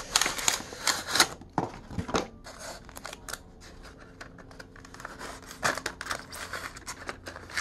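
Styrofoam packaging and a cardboard box rubbing, scraping and clicking as a model locomotive is worked out of its foam insert by hand. The handling noises are busiest in the first two seconds, ease off, then pick up again about six seconds in.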